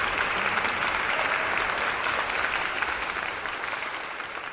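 Audience applauding a rock band after a set, many hands clapping together, the sound fading out over the last second or so.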